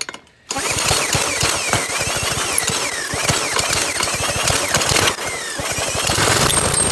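Small go-kart engine being spun over by a drill on a socket on a cold start, rattling and turning over with rapid irregular knocks and a wavering whine. It starts abruptly about half a second in.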